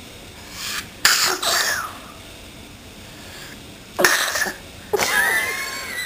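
A small child's playful fake sneezes: a drawn-in "ah" leads into a loud burst about a second in, and a second sharp sneeze comes about three seconds later, followed by a short high voiced sound.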